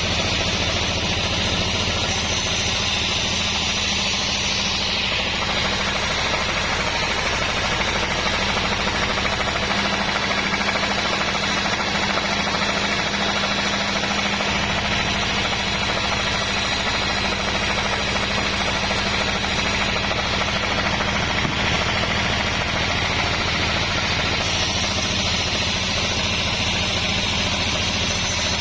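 Sawmill saw running steadily as it cuts through a very large log of wadang wood, with a machine hum under the cutting noise. A higher-pitched edge to the noise fades about five seconds in and comes back near the end.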